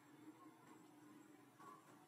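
Near silence: a faint steady background hum with a few faint, short, high chirps.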